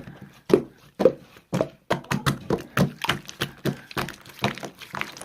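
Slime being pressed and poked by hand, giving an irregular run of sharp sticky clicks and small pops, several a second.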